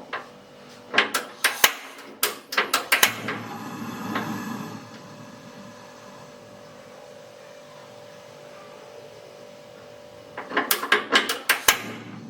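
Kitchen clatter while water is set to boil: two bursts of sharp clicks and knocks, one near the start and one near the end, with a short rush of noise about four seconds in and a faint steady hum between.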